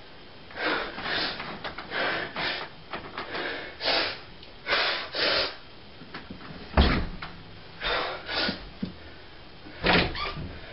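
Someone moving about a small room: a run of short rustles and scuffs, then a heavy thump about seven seconds in. Near the end comes a knock from a wooden bedroom door being opened.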